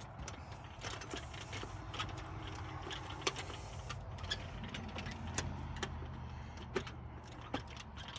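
Power drill driving screws to mount a door latch, its motor humming low, with scattered sharp clicks and knocks.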